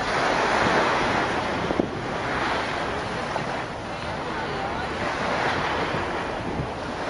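Surf washing against the rocks of a jetty, with wind buffeting the microphone; the rushing noise swells and eases every few seconds.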